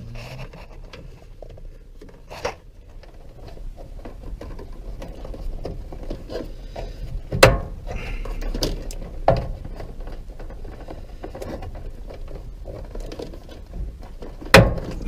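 Hands handling plastic parts and wiring inside a front-load washer's cabinet: rustling and scraping with a few sharp plastic clicks and knocks, the loudest about seven seconds in and near the end, as a small plastic door is worked shut.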